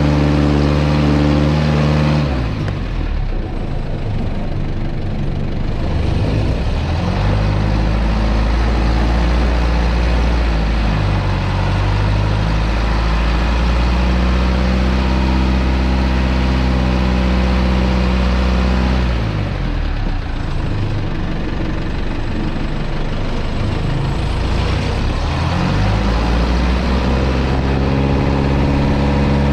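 Isuzu NPR 115 six-wheel truck's diesel engine working hard as the truck reverses through soft sandy soil without a low-range gear. The revs fall about two seconds in, climb back a few seconds later, then drop and climb again near the end.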